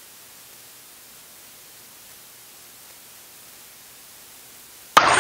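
Steady low hiss of background noise, then dance music starts suddenly near the end with long held tones.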